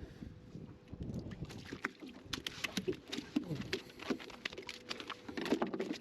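Rapid, irregular clicks and knocks of handling on a plastic fishing kayak, as a freshly landed fish and tackle are worked on, getting busier about two seconds in.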